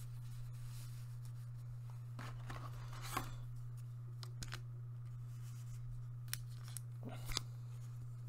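Trading cards being handled on a table: a few soft taps and slides of card stock, the clearest about three seconds in and a small cluster near the end, over a steady low hum.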